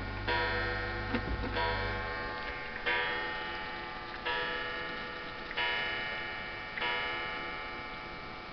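Asian carved-wood pendulum wall clock striking the hour, twelve o'clock, on its gong: six slow, ringing strokes about one and a quarter seconds apart, each dying away, with the pendulum movement ticking underneath.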